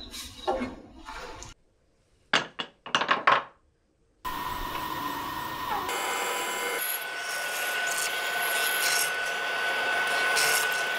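A few sharp knocks in the first seconds, then about four seconds in a bench hollow-chisel mortiser starts running with a steady whine as its square chisel bores into a timber.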